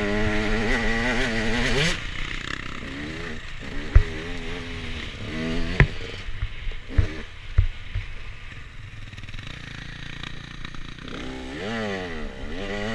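Husqvarna TE 125 enduro motorcycle engine revving hard on a climb, then coming off the throttle with short blips of revs. Four sharp knocks come in the middle. The engine pulls hard again with rising revs near the end.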